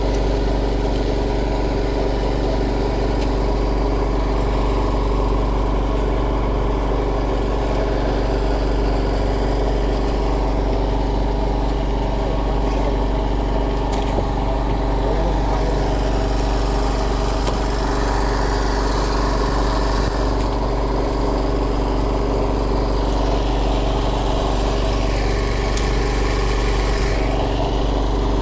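Fishing boat's engine running steadily at a low, even idle.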